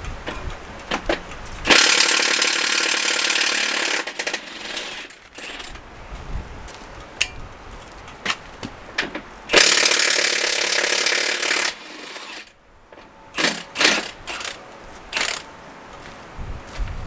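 Impact wrench run in two bursts of about two seconds each on the bolts of a tractor wheel being taken apart to reverse its dish. Short clanks and clicks of tools and metal parts come between the bursts.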